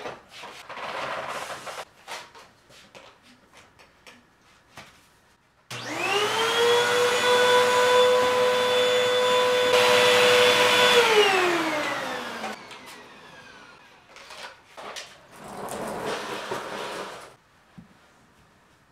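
Stick vacuum cleaner's motor starts about six seconds in and runs with a steady whine for about five seconds, then is switched off and winds down with a falling pitch. Knocks and clatter from handling come before and after it.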